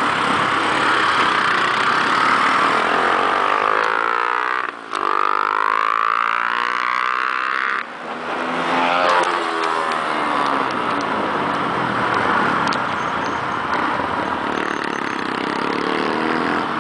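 Motorcycles running at road speed, the engine sound mixed with steady wind rush on the microphone. The engine pitch shifts in the middle, and the sound briefly cuts out twice.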